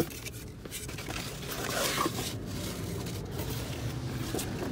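A cardboard box and its foam insert being handled as a shift knob is lifted out: scattered scrapes, rustles and small taps, with a sharp tap as it begins.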